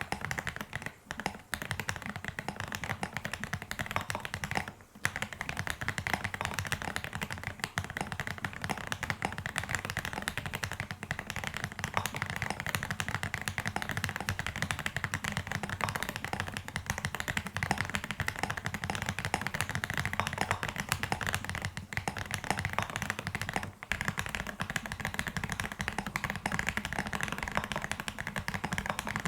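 Mechanical keyboard fitted with AKKO toast-shaped MOG-profile keycaps, typed on quickly and continuously: a dense stream of key clacks with only a few brief pauses.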